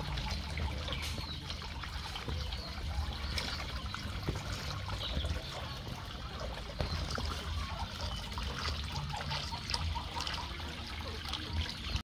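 Water trickling and splashing steadily from a pipe.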